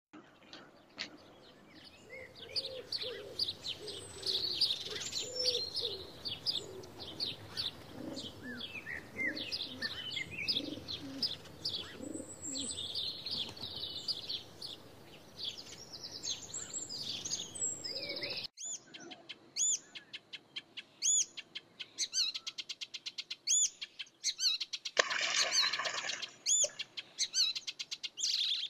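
Dawn chorus of many birds chirping and twittering, high calls thick over one another with some lower calls mixed in. The chorus breaks off suddenly about two-thirds through, leaving one bird repeating a short high call several times a second, with a brief rushing burst of noise lasting about a second and a half near the end.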